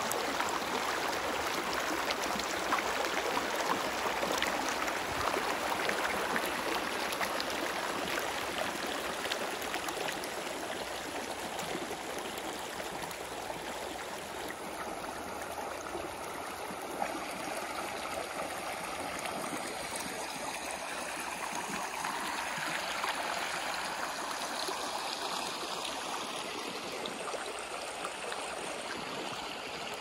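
Shallow stream of water running and babbling over stones and a small rock ledge, a steady rush.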